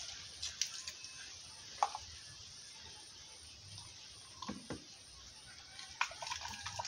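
A few light clicks and knocks from handling a plastic jug, cup and food bowl, over faint outdoor background hiss.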